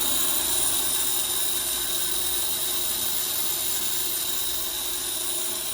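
Jewelry lathe running steadily with a high-pitched whine over a hiss while a milgrain pattern is worked into a ring.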